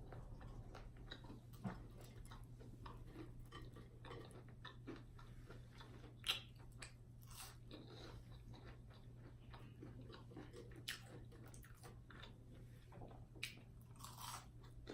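Faint chewing and biting on fried chicken gizzards, with scattered small crunches and clicks, one louder about six seconds in.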